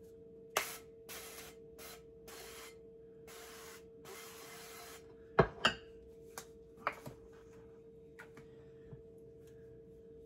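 Aerosol cooking spray hissing in about six short bursts as a baking dish is greased. A little past halfway come two sharp clicks, the loudest sounds, then a few lighter taps, over a faint steady hum.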